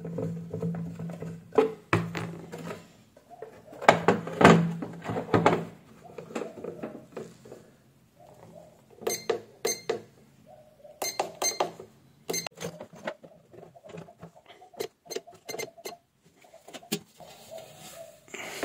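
Hands working an electronic price-computing scale: scattered clicks and taps from keys being pressed on its keypad and from its steel weighing pan being handled. A low steady hum runs under the first few seconds.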